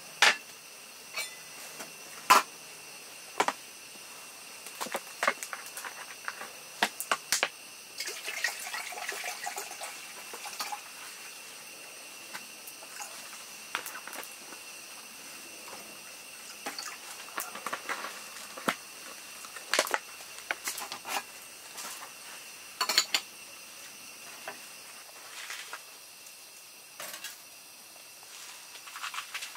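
Stainless steel gooseneck drip kettle handled and set down on a stove top: scattered sharp metallic clinks and knocks, with a brief stretch of water splashing about eight seconds in.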